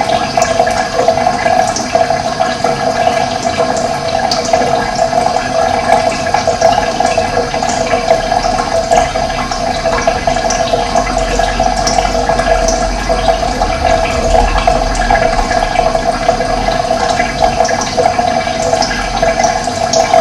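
Running water, a steady loud rushing flow, with brief high bird chirps scattered through it.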